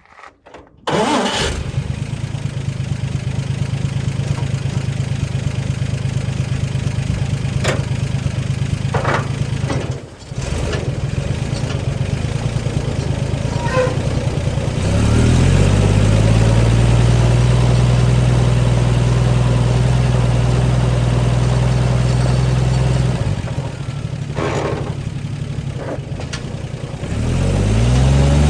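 Chainsaw engine starting about a second in and running steadily, then revved up to a higher held speed about halfway through. It drops back a few seconds before the end and revs up again.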